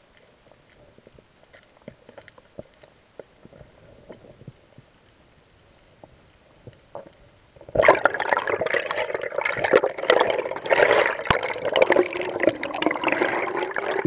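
Underwater, faint scattered clicks, then about eight seconds in a loud, choppy rush of bubbling water over the camera as the diver swims up toward the surface.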